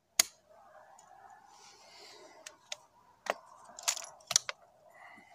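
One sharp crack near the start, then a run of light metallic clicks and rattles, typical of the Remington 597 .22 semi-automatic rifle's action being worked by hand after it failed to reload the next round.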